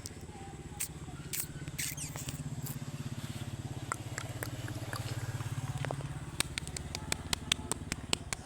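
A steady low hum with a fast, even pulse, overlaid by scattered sharp clicks that come in a quick run of about four a second near the end.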